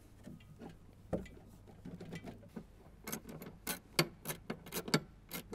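Small sharp clicks and taps from a battery and its terminal hardware being handled and fitted into a sled's battery tray. A few scattered clicks come first, then from about halfway a quick run of about four clicks a second.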